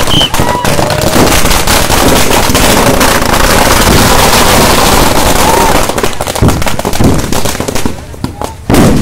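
Firecrackers on a burning effigy going off in a dense, rapid string of cracks. After about six seconds they thin out into scattered bangs, with one loud bang near the end.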